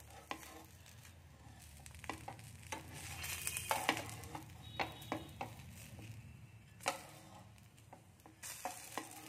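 A rolled patishapta crepe frying on a flat griddle with a soft sizzle, while a metal spatula clicks and scrapes against the pan at scattered moments; the sharpest tap comes about seven seconds in.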